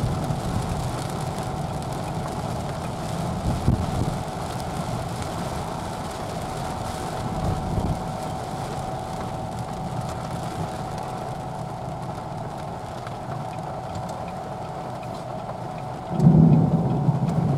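Rain falling on a car's windshield and body while it drives on wet road, with a steady hiss of rain and tyre noise and a faint steady tone. A louder low rumble comes in near the end.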